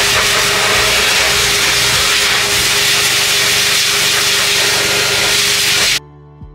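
Forced-air dog grooming dryer blowing through a narrow nozzle onto a wet puppy's coat: a steady rushing hiss with a faint hum. It cuts off abruptly near the end, and soft music with plucked notes follows.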